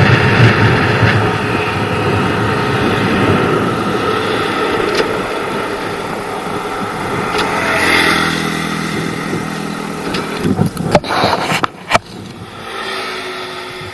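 Two-stroke Kawasaki Ninja 150 RR engine and wind noise while riding, fading slowly as the bike loses power and slows, then a steady engine note. Near the end come a few sharp knocks and the sound drops away. The loss of power is the rider's cracked spark plug misfiring.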